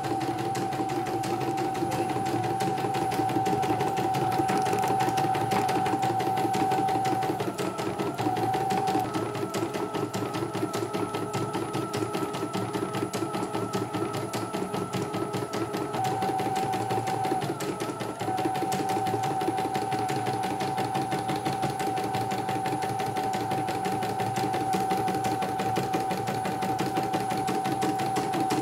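CNY E900 computerized embroidery machine stitching a design in its hoop: fast, steady needle strokes over a motor whine that shifts in pitch briefly twice.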